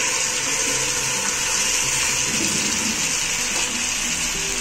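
Pieces of goat liver frying in hot oil with ginger-garlic paste: a steady sizzle in the pan as they are turned with a wooden spatula.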